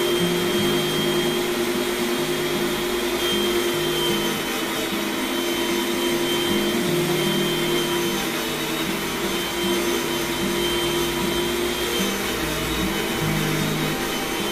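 Electric meat grinder's motor running steadily with a constant whine, its auger forcing dry, crumbly material out through the cutting plate.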